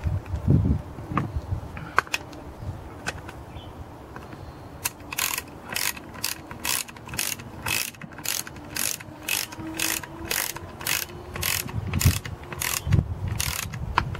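Socket ratchet wrench clicking in a steady run of back-strokes, about two clicks a second, as a nut is run down on the chainsaw's bar cover.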